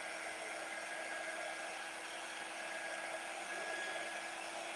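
Small handheld craft dryer blowing steadily with a faint constant hum, drying freshly applied chalk paste on a wooden board.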